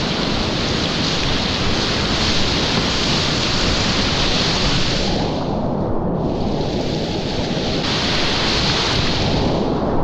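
Whitewater rapids rushing and splashing close around a kayak. The high hiss briefly turns duller about six seconds in.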